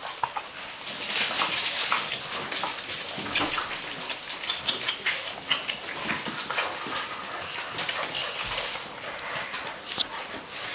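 A litter of Great Dane puppies scuffling and playing on a tiled floor: a busy, irregular clicking and pattering of claws and paws on the tiles, with small puppy whimpers among it.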